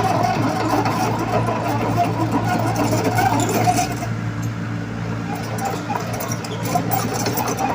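Diesel engine of heavy construction machinery running steadily, with scattered light clicks and clatter over it.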